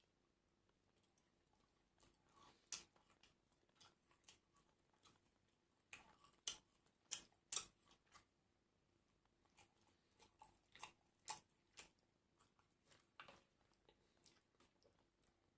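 A person chewing and biting food close to the microphone: irregular soft crunches and mouth clicks, busiest and loudest for a couple of seconds in the middle.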